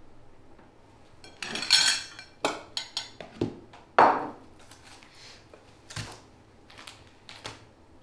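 A fork clinking and scraping on a plate as someone eats: a longer scrape about a second and a half in, then a scatter of sharp clinks, the loudest about four seconds in.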